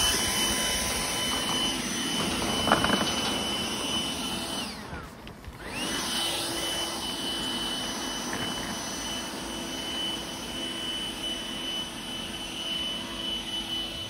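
Cordless electric leaf blower running: a steady high motor whine over rushing air as it blows grass clippings off pavement. About five seconds in it winds down and stops for a moment, then spins up again with a rising whine and runs on.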